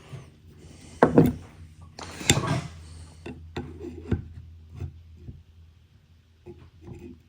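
Locked micrometer sliding and rubbing over a crankshaft journal of a Ford 302 V8 to check its fit, with two louder scrapes about a second and two seconds in and light metal clicks and knocks of handling between them.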